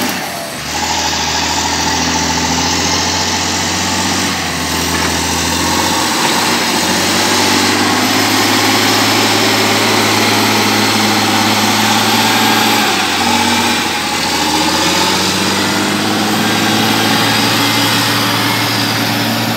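LiuGong motor grader's diesel engine running as the grader works past. Its engine note shifts up and down a few times, about four, six and thirteen seconds in.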